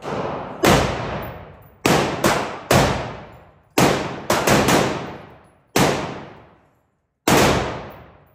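A 9 mm semi-automatic rifle fired about ten times in quick, uneven succession, some shots less than half a second apart. Each shot is loud and rings out in a long echo off the indoor range.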